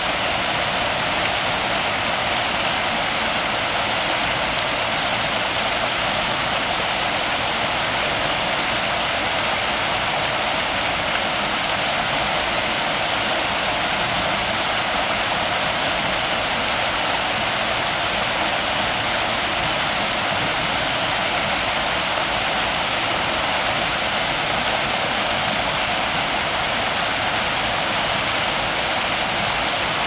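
Small waterfall: water spilling in several streams over a rock ledge and splashing into a shallow pool, a steady, even rush of falling water.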